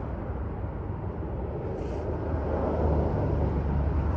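Steady low outdoor rumble with no speech, growing louder about two and a half seconds in.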